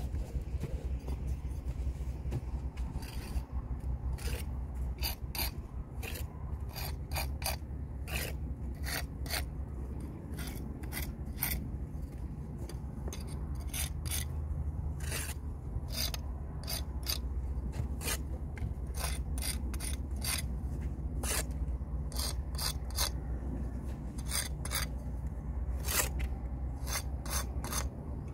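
Steel brick jointer being drawn along fresh mortar joints in a brick wall, tooling them: many short, gritty scraping strokes, often several in quick succession, over a steady low rumble.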